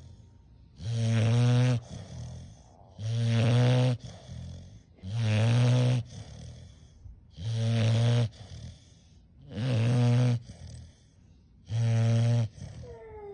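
A Dogue de Bordeaux snoring in its sleep: six loud, rattling snores, about one every two seconds.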